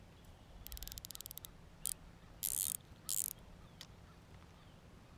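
Fishing reel working: a fast run of ratchet-like clicks about a second in, then three short whirring bursts as the reel is worked.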